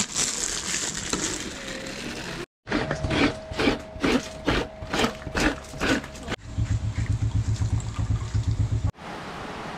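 A plastic bag crinkling as rice grains are poured onto a woven bamboo tray. Then comes a rhythmic squishing, about two or three strokes a second, as hands squeeze freshly grated coconut to press out its milk. It is followed by a low quick pulsing and a steady noise.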